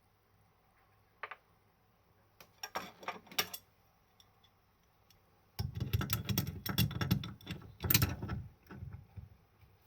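Small hard parts and tools being handled while a basin faucet is taken apart: a single click, a brief run of clicks and scrapes, then a few seconds of dense clattering and knocking.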